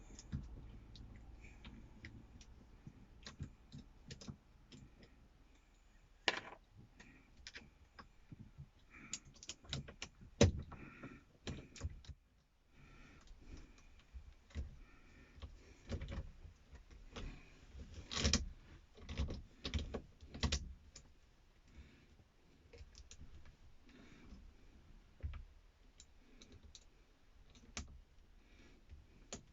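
Irregular clicks, taps and knocks of a steering wheel knob being handled and worked onto the wheel by hand, with a few louder knocks midway.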